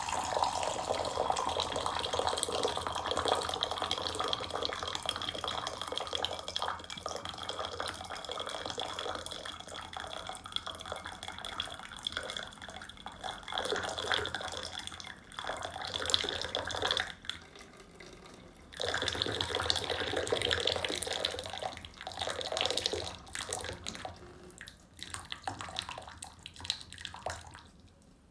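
Hot water being poured into a mug, splashing steadily. About two-thirds of the way through it stops for a moment, then comes again in a few shorter pours.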